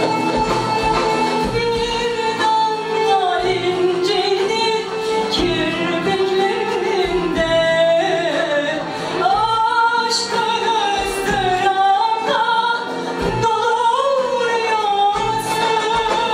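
Turkish music ensemble performing a song: a singer carries an ornamented melody that glides between notes, over violins, oud and percussion.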